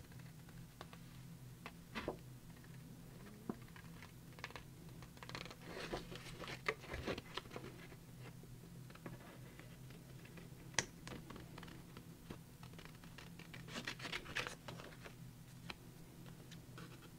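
Faint cutting and rustling of paper as a coloured piece is cut out by hand. It comes in irregular clusters with scattered light clicks, over a steady low hum.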